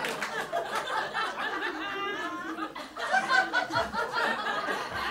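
Audience laughing at a punchline, many voices chuckling and laughing together.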